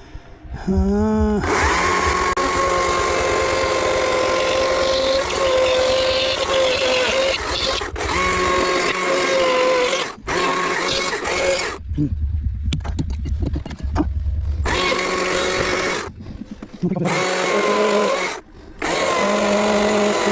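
Chainsaw revving up and cutting into wood in long bursts at high speed. It drops back to a low idle for a few seconds about two-thirds of the way in, then cuts again in shorter bursts.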